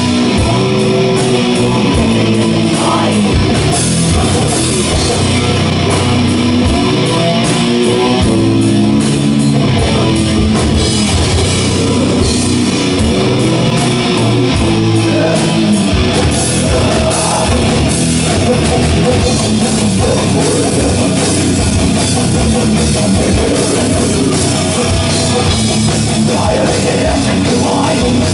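Extreme metal band playing live: distorted electric guitar, Rickenbacker bass and drum kit with crashing cymbals, loud and unbroken.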